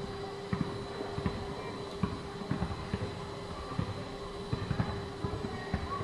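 Basketball being dribbled on a playground court: irregular dull thumps of the ball hitting the ground, about two a second, over a steady low hum.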